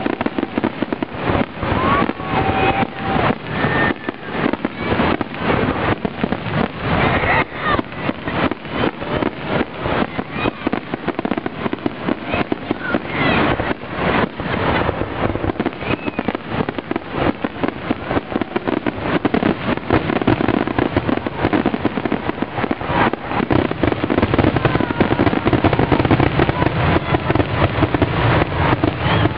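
Fireworks finale: a continuous barrage of aerial shell bursts, several bangs a second, growing denser and louder toward the end.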